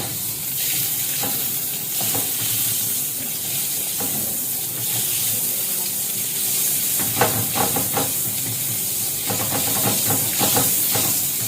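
Margarine melting and sizzling in a hot frying pan, a steady hiss.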